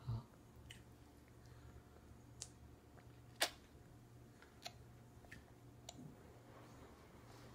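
A baby sucking and gnawing on a whole lime: scattered small wet mouth clicks and smacks, one louder click about three and a half seconds in.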